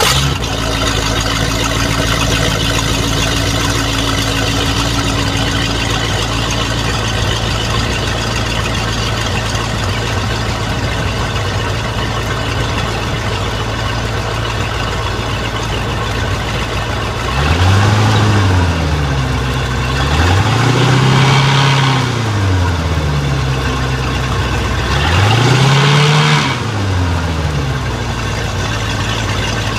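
Freshly rebuilt Mercruiser 350 (5.7 L small-block V8) marine engine idling steadily on its first run after the rebuild, exhausting through the Alpha One stern drive. In the second half it is revved up and back down three times.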